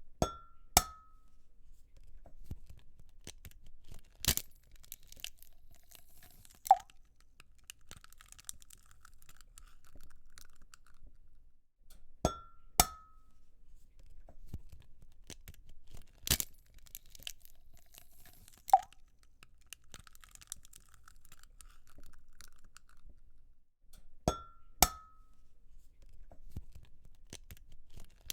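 Eggs being cracked one after another, about every twelve seconds. Each egg gives sharp taps against a bowl that ring briefly, then a faint crackle as the shell is pulled apart and the egg drops in.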